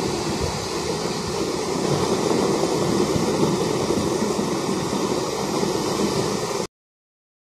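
Steady rushing roar of iron ore pouring from a shiploader chute into a bulk carrier's cargo hold, mixed with the loader's machinery. It cuts off abruptly shortly before the end.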